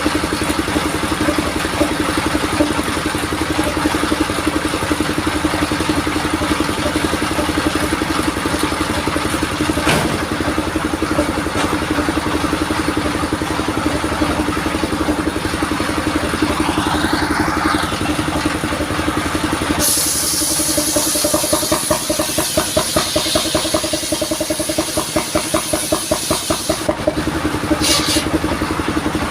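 Engine of a modified vehicle-powered sawmill rig running steadily. About twenty seconds in, a high hiss joins and the running takes on a fast, even pulsing for several seconds before settling back.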